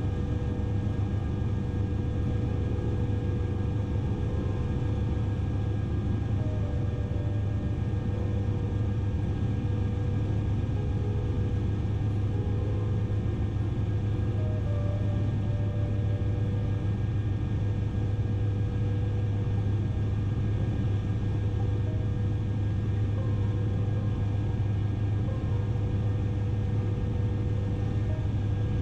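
Bell 407 helicopter in flight: the steady drone of its rotors and single turboshaft engine. There is a strong low hum, with a few constant higher whining tones over it.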